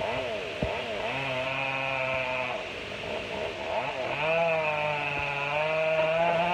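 Chainsaw engine revved up twice: held at high speed for about a second and a half, dropping back to a wavering idle, then run up again from about four seconds in to the end.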